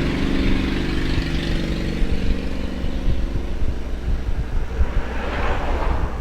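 Epson L3210 inkjet printer's motors running as it works the paper through, with a brief louder noisy swell about five seconds in. The printer is in its false paper jam cycle, which the owner blames on a damaged print head flex cable.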